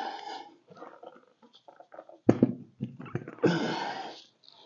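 Tractor rear wheel fitted with tyre chains being worked onto a wheel spacer's hub: scattered light knocks, a sharp clunk about two seconds in, then a scraping rattle lasting under a second.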